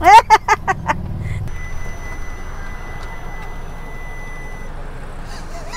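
Street traffic noise with a steady high-pitched beep-like tone held for about three seconds, starting about a second and a half in. A brief voice at the very start.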